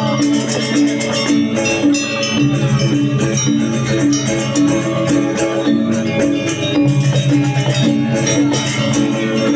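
Balinese gamelan ensemble playing: struck metal keys sound a repeating pattern of ringing pitched notes, under fast, dense high metallic strokes.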